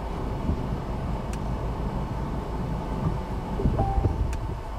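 Uneven low rumble, like wind or a vehicle outdoors, with a few faint clicks and a brief high tone about four seconds in.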